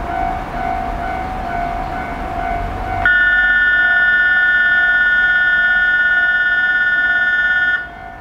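Electric train running with a rumble and a steady hum. About three seconds in, a train horn sounds one loud, steady chord of several tones for nearly five seconds, then cuts off sharply.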